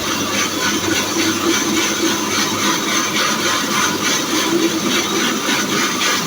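Electric horizontal band sawmill driven by a 5.5 HP electric motor, running steadily as its band blade saws through a log, a continuous hissing rasp with a low hum beneath.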